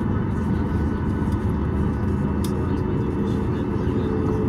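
Steady low rumble inside the cabin of a Boeing 737 MAX 8 taxiing to the gate, from its idling CFM LEAP-1B engines and cabin air, with a faint steady hum. A brief click comes about two and a half seconds in.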